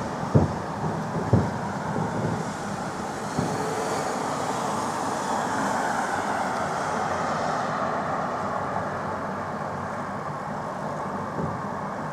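Fireworks salute bursts booming, two sharp bangs in the first second and a half, over a steady background rumble of city traffic; a higher hiss swells and fades in the middle.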